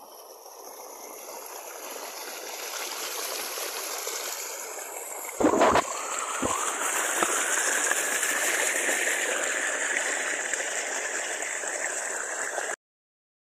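Steady rushing of flowing water, growing louder over the first few seconds, with a loud knock about five and a half seconds in and a smaller one a second later. It cuts off abruptly near the end.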